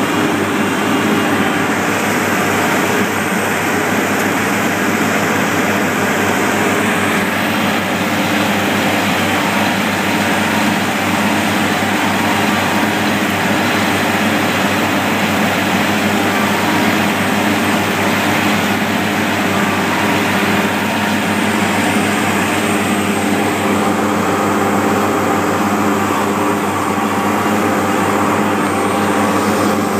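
Asphalt paver's diesel engine running at a steady speed, heard up close from on board the machine.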